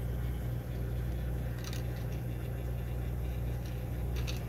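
Small 120-volt, 4-watt gear motor turning at 5–6 rpm, humming steadily as it slowly drives the lure turner's PVC axle, with a couple of faint ticks.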